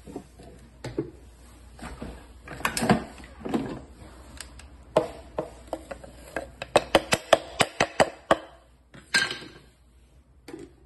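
Kitchenware knocking and clattering as cinnamon, salt and baking powder go into a plastic food-processor jar: scattered knocks, then a quick run of sharp taps, about six a second, about seven seconds in.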